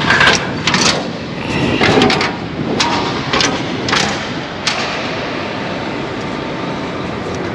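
Sharp metal clanks and knocks, about seven over the first five seconds, as the door of an empty galvanized steel grain bin is unlatched and opened; after that only a steady background noise.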